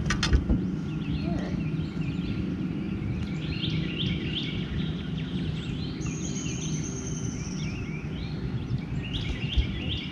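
Birds chirping and calling over and over, with a high falling whistle midway, over a steady low background rumble. A couple of sharp clicks sound just after the start and near the end.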